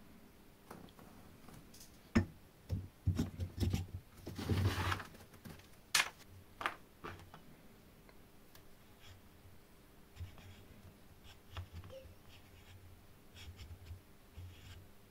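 Small objects being handled at a workbench: scattered clicks and knocks, a short scrape about four and a half seconds in, then softer taps.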